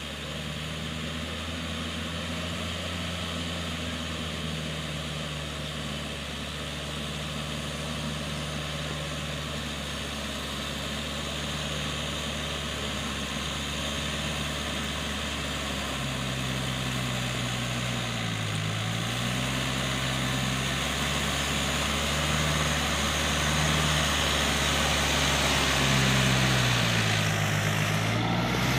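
Yanmar EF494 tractor's diesel engine running steadily as it tills a flooded rice paddy, growing louder as it comes closer. About two-thirds of the way through, and again near the end, the engine note sags briefly and then recovers.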